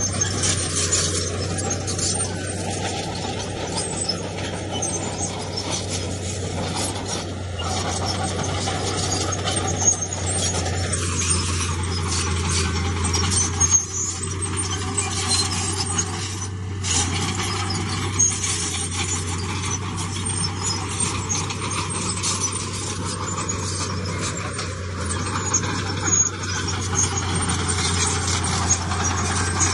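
Heavy diesel earthmoving machinery running steadily, a constant low engine drone with metallic squealing and clanking over it.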